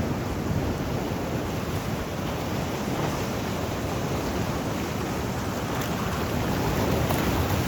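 Sea waves washing onto the shore in a steady rush, swelling a little near the end, with some wind on the microphone.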